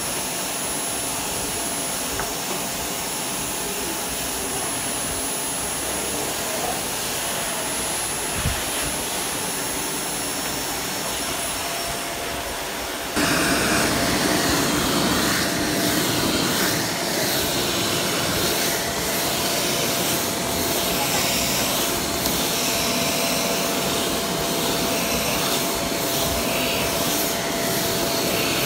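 Canister vacuum cleaner running with a steady motor whine and rushing air. About halfway through it abruptly gets louder and swishes rhythmically, rising and falling about once a second.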